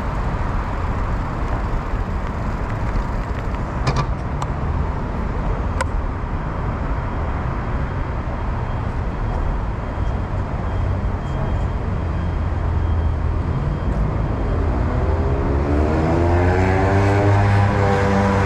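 Steady low rumble of road traffic and wind noise, with a couple of light ticks. Near the end a motor vehicle's engine revs up, rising in pitch and getting louder.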